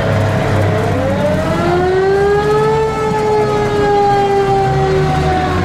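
A vehicle siren winds up about a second in, rising in pitch, then holds and slowly sinks, over the low, steady running of the passing WWII military vehicles' engines.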